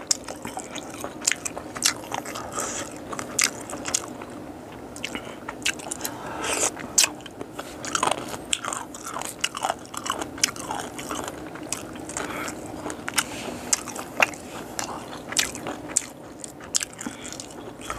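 A person biting and chewing boiled frog, with repeated short crunches and wet mouth clicks throughout.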